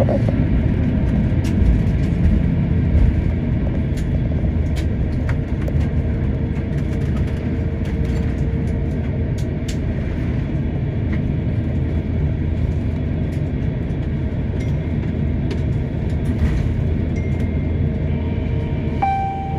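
Steady low rumble of an airliner heard from inside the cabin, with scattered light clicks and rattles, and a brief steady tone just before the end.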